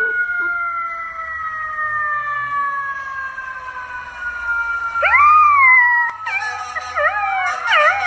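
A golden retriever puppy howling: one rising-then-falling howl about five seconds in, then a run of wavering howls. Under the first six seconds runs a long, slowly falling wail.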